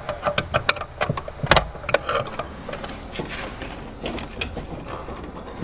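Irregular metallic clicks and knocks of hand tools and parts as the lower shaft of a car's steering column is unbolted and taken out.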